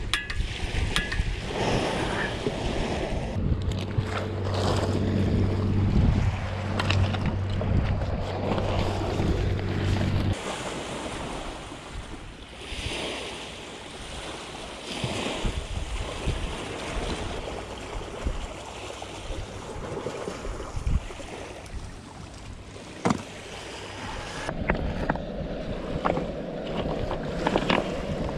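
Wind and waves washing on the shore, with a steady low mechanical hum from about three seconds in that cuts off suddenly about ten seconds in, and a few scattered clicks and knocks.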